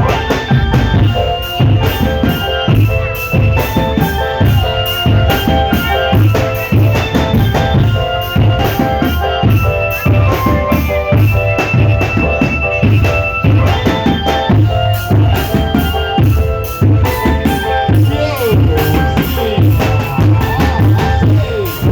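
Marching drum band playing: rapid, dense drum beats with deep bass drum strokes, under a melody of held notes.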